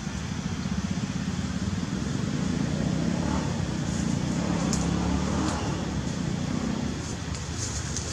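Low engine rumble of a passing motor vehicle, swelling just after the start and easing off about seven seconds in, with a few faint ticks.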